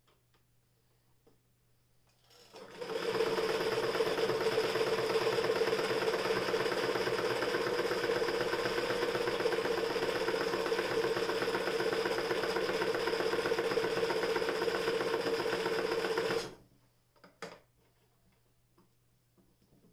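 Frister & Rossmann Model 45 heavy-duty electric sewing machine stitching through denim: its motor spins up about two seconds in, runs at a steady speed for about fourteen seconds, then stops abruptly. A couple of light clicks follow near the end.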